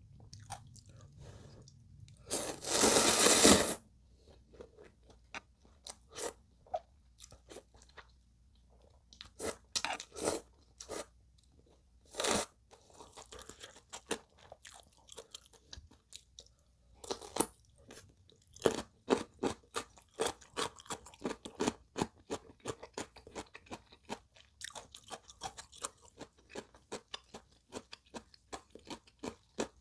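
A loud slurp of instant ramyeon noodles about two seconds in, lasting just over a second. Then close-miked chewing with many short crisp crunches and mouth clicks, coming thick and fast in the second half.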